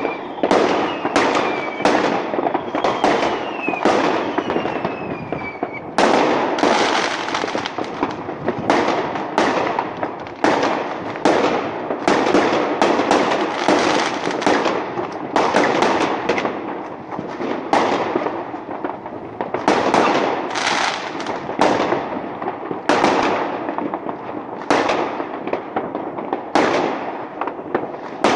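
Fireworks going off: a dense, unbroken run of bangs and crackles, roughly one to two sharp reports a second. Several falling whistles sound over them in the first few seconds.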